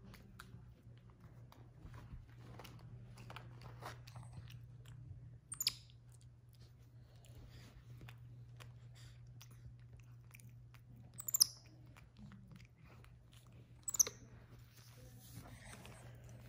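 White-faced capuchin monkey chewing and crunching a monkey biscuit: a fine, steady patter of small crunchy clicks. It is broken three times by a brief, sharp, high-pitched sound.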